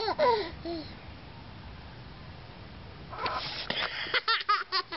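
Toddler laughing in quick, repeated high giggles that trail off about a second in, then breaking into another fit of laughter about three seconds in.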